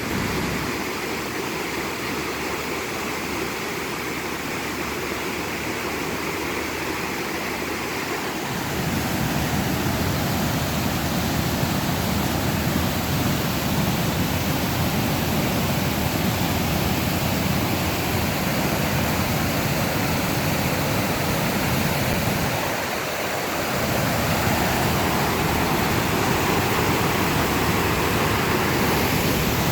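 Flooded stream running out of its banks and pouring hard over a falls, a steady loud rush of water. About eight seconds in a deeper rumble joins it and stays, apart from a brief drop near the end.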